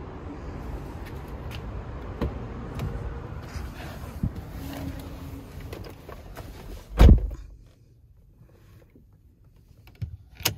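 Porsche Cayenne Turbo's driver door handled and opened with small clicks, then shut with a heavy thud about seven seconds in, after which the sealed cabin goes quiet. Near the end come a couple of sharp clicks as the ignition is turned.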